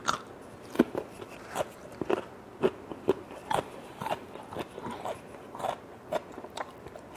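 Close-miked chewing of crunchy food, with short crisp crunches at an even pace of about two a second.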